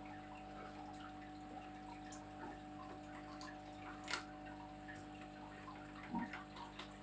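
Faint steady hum and light water trickle from an aquarium pump running on a fish tank. A single sharp click comes about four seconds in, and a few soft knocks follow near the end.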